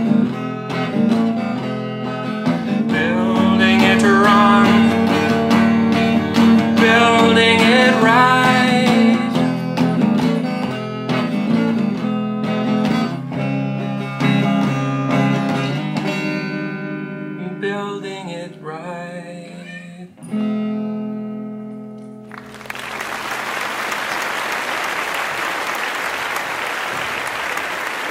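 A man singing to his own electric guitar, the song ending on a held chord about twenty seconds in. Applause starts a couple of seconds later and carries on.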